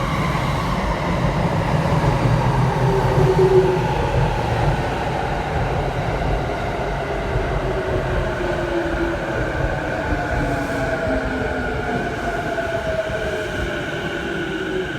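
Electric rapid train running, with a steady low rumble and a motor whine of several tones that falls slowly in pitch throughout.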